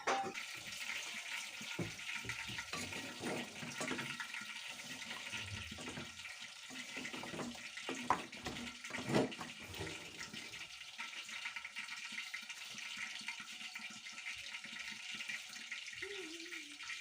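Steady sizzling hiss of pots cooking on the stove: a stew cooking and palm oil heating until it bleaches. A few faint knocks sound in the first half.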